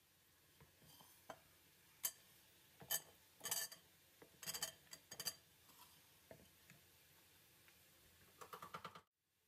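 Cut raw potato cubes tumbling off a bamboo cutting board into a bowl: a scatter of light knocks and taps of potato pieces and the wooden board, then a few more taps as the board is set back down on the counter. The sound cuts off suddenly near the end.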